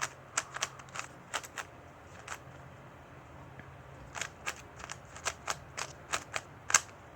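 Layers of a carbon-fibre Rubik's cube being turned by hand: a run of quick sharp plastic clicks, a pause of about a second and a half, then a second run ending in one louder click.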